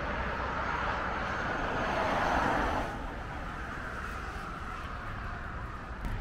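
Road traffic passing on the road beneath: tyre and engine noise of passing vehicles, a lorry among them, swelling and then dropping away sharply about three seconds in, leaving a quieter, steady traffic hum.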